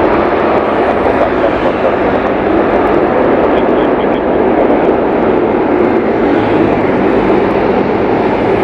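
Boeing 737-500 jet engines running at low thrust as the airliner taxis and lines up on the runway, heard across the airfield as a steady rushing noise.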